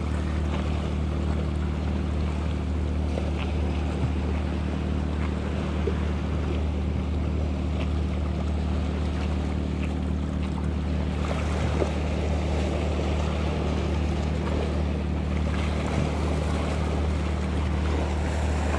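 Waves washing against shoreline rocks over a steady low drone of a boat engine running at constant speed, with a few faint clicks from handling tackle.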